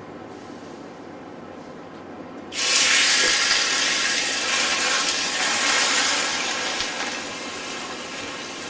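Marinated skirt steak hitting a hot cast iron skillet with grapeseed oil: a loud sizzle starts suddenly about two and a half seconds in and slowly eases off as the steak is weighed down with a grill press.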